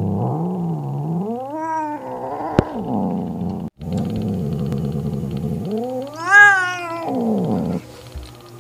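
Domestic mother cat growling low and steadily, twice rising into a long wailing yowl that climbs and falls in pitch, about a second and a half in and again, louder, about six seconds in. It is a threat to drive another cat away from her kitten.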